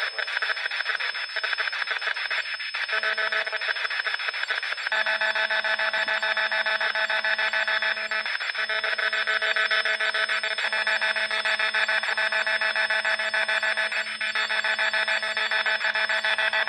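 Handheld spirit box sweeping rapidly through radio stations, giving a continuous fast, choppy static. A steady low hum joins about three seconds in.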